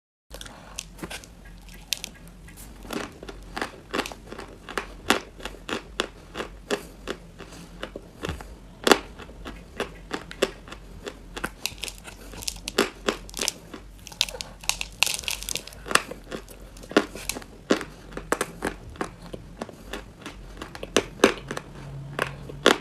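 Mali chalk being bitten and chewed close to the microphone: a long, irregular run of sharp crunches.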